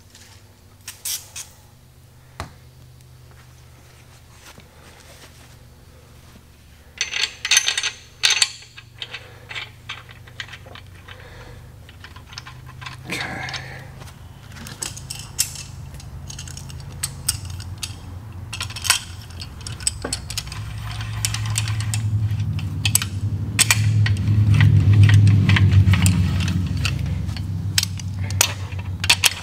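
Metal hand tools and main bearing caps and bolts clinking and clattering against a Mopar 383 big-block, with a burst of sharp clinks a few seconds in. Over the second half a low rumble with scattered clicks builds up, loudest a few seconds before the end.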